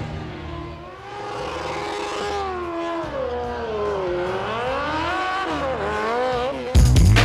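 Suzuki GSX-R1000's inline-four engine revving hard in a smoky burnout, its pitch rising and falling over and over. Loud music cuts in suddenly near the end.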